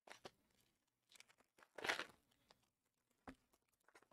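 Plastic trading-card packaging being torn open and crinkled in short, faint bursts, the loudest about two seconds in, with a single soft knock a little after three seconds.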